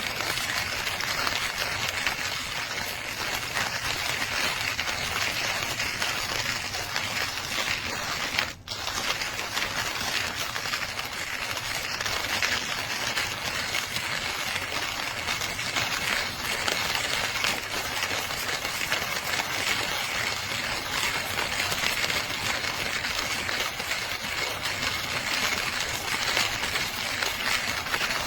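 JavaPresse manual conical burr coffee grinder being hand-cranked, coffee beans crunching and crackling steadily in the burrs, with a momentary break about eight and a half seconds in.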